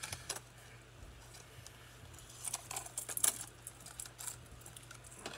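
Hard plastic clicking and clattering as a Megabass S-crank square-bill crankbait and its plastic box are handled. There are a few scattered clicks, then a quick flurry of them about two and a half to three and a half seconds in.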